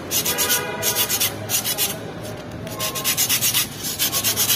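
Fast back-and-forth scrubbing strokes on a suspension fork part, about five or six strokes a second, in runs with short pauses between them, as rust and old grease are cleaned off.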